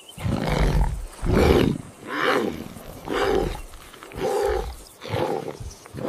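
A big cat roaring: a series of six calls, about one a second, the sign of a predator on the hunt nearby.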